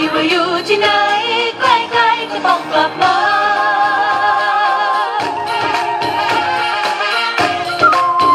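Thai dance music playing, with singing over it and frequent jingling percussion strikes; the music cuts off abruptly at the very end.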